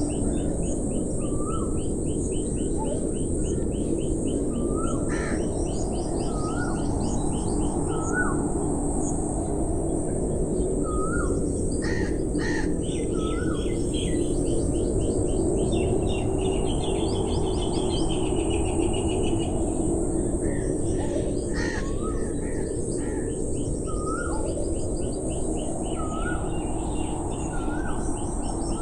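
Outdoor birdsong: several birds calling, with short repeated chirps, fast high trills and a few harsh caws, over a steady low rushing background.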